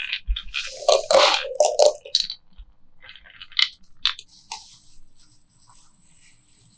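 Marbles rattling and clicking along a rain-gutter and wooden-rail marble run, busiest in the first two seconds, then a few separate clicks between about three and a half and four and a half seconds in.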